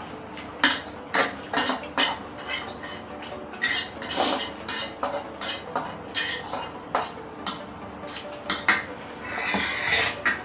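Cutlery clinking and scraping against bowls and plates in irregular short strokes while noodles are eaten.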